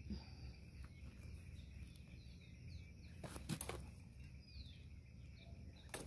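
Faint outdoor background of birds chirping, short high calls that fall in pitch. About three and a half seconds in, and again near the end, a couple of brief knocks and scrapes as a hand trowel digs into soil in a plastic pot.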